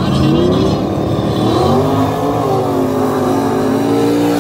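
Drag racing car accelerating hard down the quarter-mile strip, its engine pitch climbing, dropping briefly about a second and a half in as it shifts gear, then climbing again and levelling off as the car pulls away.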